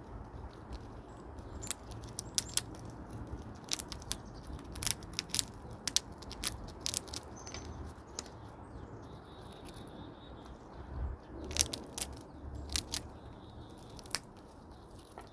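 A chipmunk biting into and cracking nuts: irregular sharp clicks and crunches in clusters, with a pause in the middle. Wind rumbles low on the microphone throughout.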